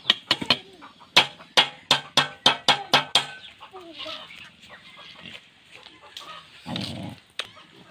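Helmeted guinea fowl giving their harsh, staccato cackle: a run of about nine sharp notes that speeds up over the first three seconds. A single falling note follows, and near the end there is a short low rustle.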